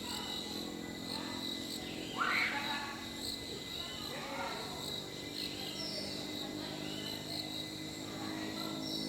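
Insects shrilling in a steady high-pitched chorus, with scattered short calls and one louder rising call about two seconds in.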